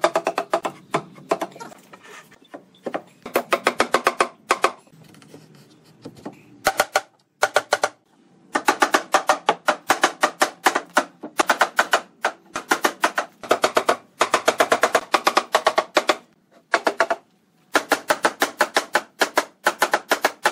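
Rubber mallet striking a hardwood bed frame in rapid runs of blows, several a second, with short pauses between runs: the side rails being knocked home into the post joints.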